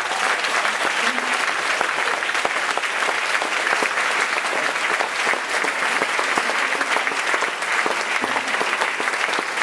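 Sustained applause from many people, the choir on stage and the audience in the hall, clapping in a dense, steady stream.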